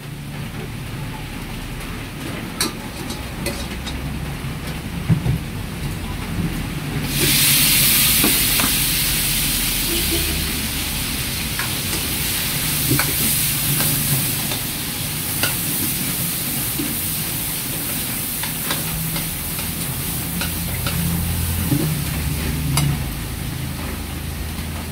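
Gas wok burner running with a low steady rumble. About seven seconds in, something goes into the hot wok and a loud sizzle starts suddenly, then fades over several seconds. A wok spatula scrapes and taps against the wok now and then as it is stirred.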